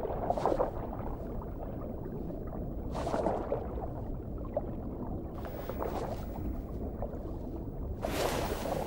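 Underwater ambience: a steady low rumble with four short rushes of bubbling, swirling water. The last rush, near the end, is the loudest.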